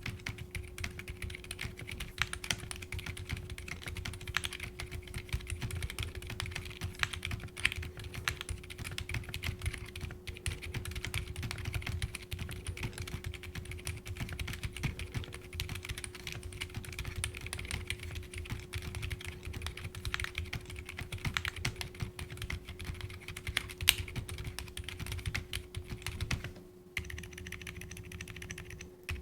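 Continuous typing on a mechanical keyboard fitted with Akko Fairy silent linear switches, which have silicone dampers on the stem rails. The keystrokes are muted, dense and irregular, over a steady low hum. The typing breaks off near the end.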